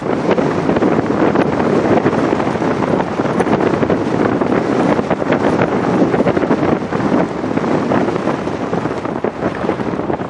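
Strong wind buffeting the microphone: a loud, rough rushing noise that flutters and gusts without letting up.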